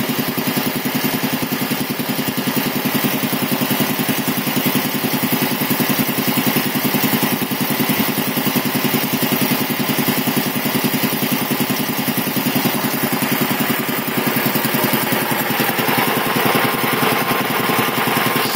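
Quincy QR-325 piston air compressor pump, belt-driven by a 5 HP single-phase electric motor and set to turn about 621 rpm, running steadily with an even rapid pulse of its strokes. It is pumping up the tank under load, with the gauge part way up toward the 100 psi cut-off.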